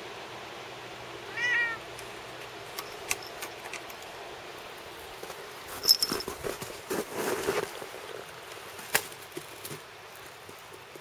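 A cat meows once, briefly, about a second and a half in. Later come clicks and a rustling stretch as it moves through dry twigs along a wooden fence rail, with a short high ring from its collar bell about six seconds in.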